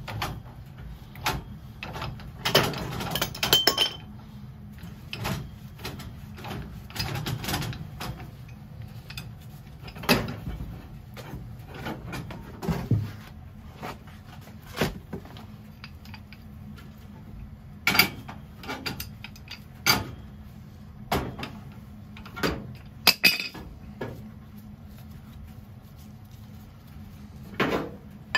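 Pipe wrenches and steel tools clanking and scraping on black iron gas piping as it is unthreaded from a boiler's failed gas valve: irregular sharp metal knocks with a few louder clanks, over a low steady hum.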